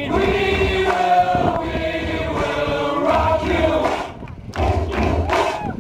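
A crowd of runners singing or chanting together in unison in long held notes, with a short break about four seconds in.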